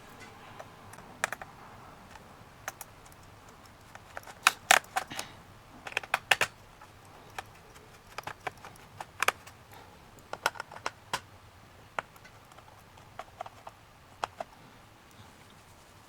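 Irregular small sharp clicks and taps of a screwdriver working the screws of a laptop's plastic bottom access cover, in short clusters with pauses between.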